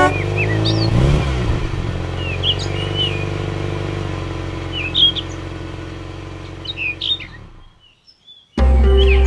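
Birds chirping over a vehicle engine sound that revs up and down, settles to a steady hum and fades out. Near the end a loud, low, steady note starts.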